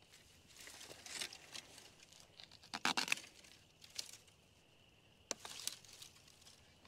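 Long-handled loppers cutting thin woody stems: a quick cluster of sharp snips about three seconds in, then single snips near four and five seconds, among rustling of dry grass and brush.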